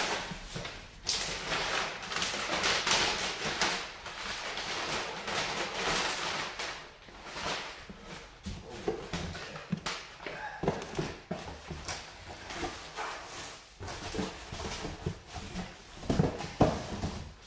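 Crumpled kraft packing paper rustling and crackling as it is pulled out of a cardboard shipping box, with cardboard flaps and boxes being handled. It is dense at first and gives way to scattered clicks, then a few knocks near the end as boxes are set down.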